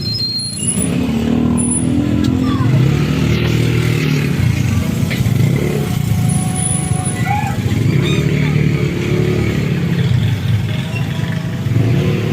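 Motor vehicle running on the road: a steady, loud rumble of engine and road noise.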